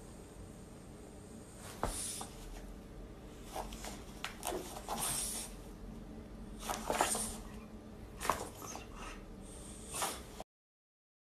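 French bulldog puppy snuffling and snorting as it rubs and rolls on a woven rug: scattered short breathy bursts and scuffs. The sound cuts off suddenly near the end.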